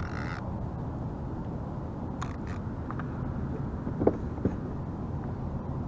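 Steady low wind and water noise on the microphone, with a few light clicks about two seconds in and two short knocks just after four seconds as a fishing rod is handled on the kayak.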